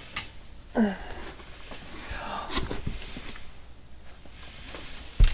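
A short vocal murmur, then rustling and crinkling of packaging as things are handled in a cardboard shipping box. A single sharp thump comes near the end and is the loudest sound.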